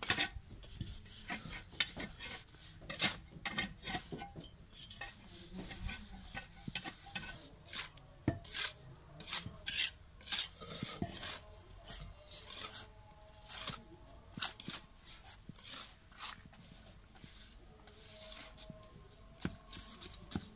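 Metal hand trowel scraping and scooping through a heap of damp, gritty concrete mix in quick, irregular strokes.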